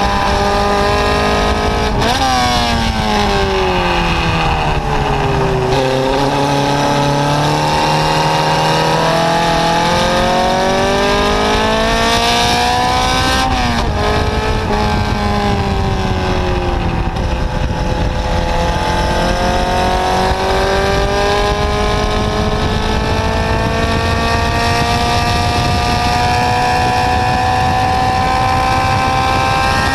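Formula Junior racing car's engine heard onboard at racing speed, its pitch swinging as the driver works the throttle and gears. About two seconds in it blips up and then falls for several seconds; around ten seconds it climbs to a sharp drop near fourteen seconds, dips again, then climbs slowly and steadily through the last ten seconds.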